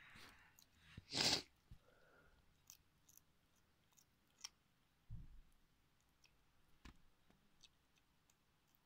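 Faint clicks and crunches of a bearded dragon chewing worms, with one louder brief rustle about a second in and a soft thump around five seconds in.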